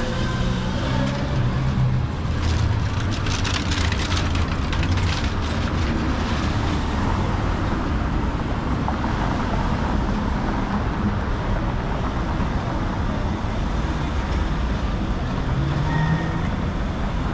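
Downtown street traffic: cars and SUVs running through a city intersection, a steady rumble of engines and tyres. There is a spell of crackling, ticking noise a few seconds in, and an engine pulling away near the end.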